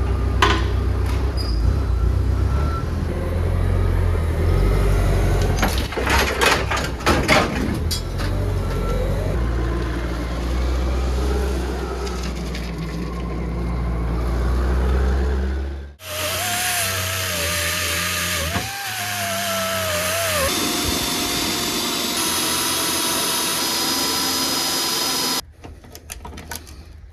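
Forklift engine running steadily with a low rumble, with a series of clatters about six to eight seconds in. After a cut, a power tool whines at a wavering pitch over a steady hiss.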